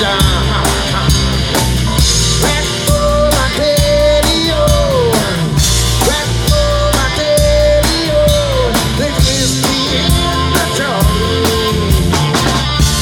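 Live rock band playing: drum kit, bass guitar, keyboard and electric guitar over a steady drum beat, with a lead line of long held notes that bend down at their ends.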